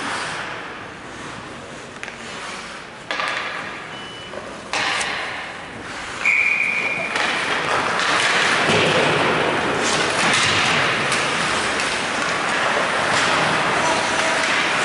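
Ice rink sound during an ice hockey game: a few sharp knocks of sticks, puck or boards, a short whistle about six seconds in, then a louder, steady din of spectator voices and skating.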